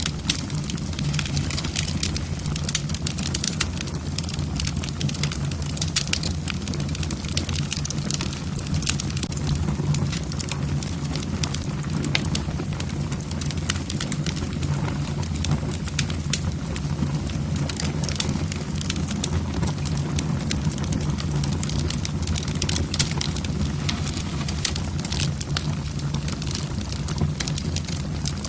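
Wood fire in a fireplace, burning logs crackling with many irregular sharp pops over a steady low hum.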